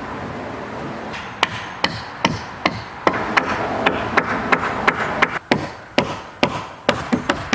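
Hammer blows on wood, a steady run of sharp strikes about two to three a second, starting about a second in.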